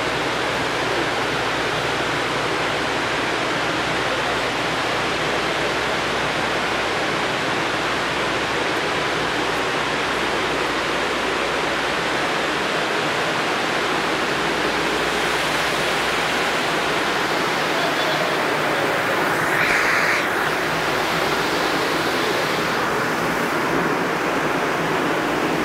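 Loud, steady industrial machinery noise: an even, hiss-like din across the whole range, with a brief louder burst about twenty seconds in.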